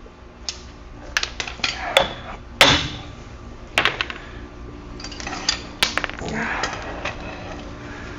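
Hand tools clinking and clanking on metal in a run of sharp, irregular knocks, with short scrapes between them. The loudest knock comes a little over two and a half seconds in.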